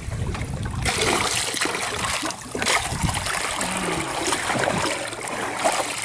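Water splashing and churning as a large lingcod thrashes at the surface beside the boat.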